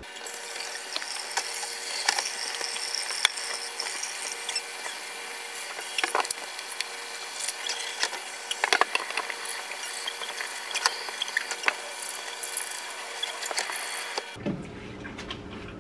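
Kitchen faucet pull-out sprayer running water onto a silk-screen printing frame in a steel sink: a steady hiss with scattered spattering clicks as dried ink is rinsed out of the mesh. It cuts off suddenly about a second before the end.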